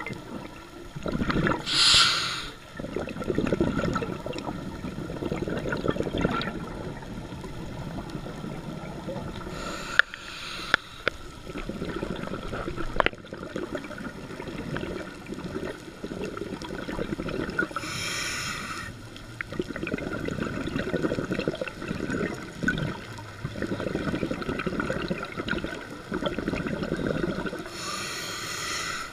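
Scuba diver breathing through a regulator underwater, heard through the camera's waterproof housing: exhaled air bubbles out in a low, uneven gurgle, broken three times by the short hiss of an inhalation, with a couple of sharp clicks near the middle.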